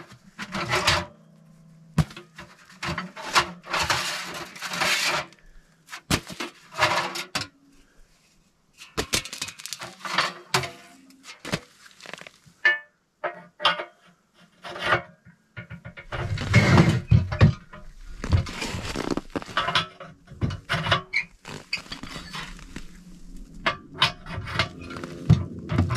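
Repeated metal clanks, knocks and scrapes as sheet-metal stovepipe sections and stove parts are pulled out of a small wood stove and set down, over background music that grows stronger in the last third.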